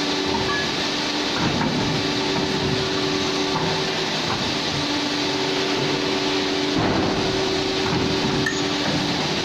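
Hydraulic CNC pipe bending machine running: a steady hydraulic pump hum with a whine that drops out and returns as it works through its cycle, with a few light knocks.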